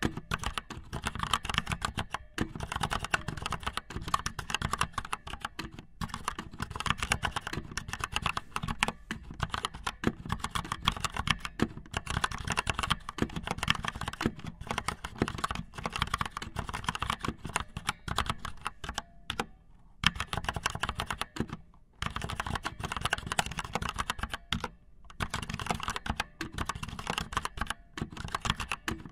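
Rapid, irregular clicking, many taps a second, broken by a few short pauses.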